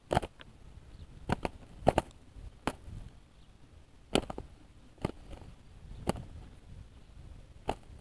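Two spotted doves fighting on the ground, their wings striking in sharp slaps: about a dozen, irregular and often in quick pairs.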